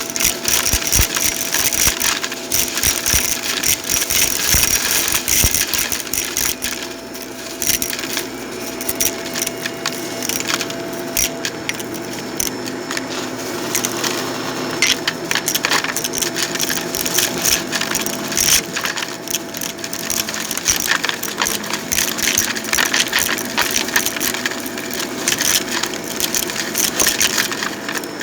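Vacuum cleaner running over carpet: a steady motor hum with constant crackling and clicking as it picks up debris.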